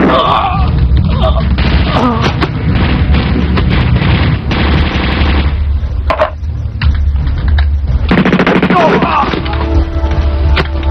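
Film battle sound: rapid bursts of automatic gunfire mixed with single rifle shots, with men shouting now and then. Background music comes in near the end.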